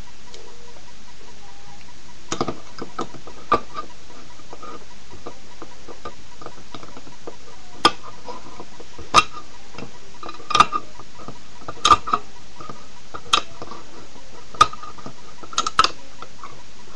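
Lever-type can opener of a credit card knife prying and cutting around the rim of a tin can. Each stroke makes a sharp metallic click with a brief ring, about ten at uneven intervals, with a pause of a few seconds in the first half.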